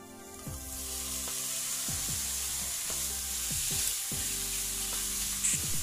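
Wet, freshly washed raw chicken pieces sizzling in a hot, dry non-stick wok with no oil. The hiss starts about half a second in as the chicken lands in the pan and then holds steady while a silicone spatula spreads the pieces, with a brief louder hiss near the end.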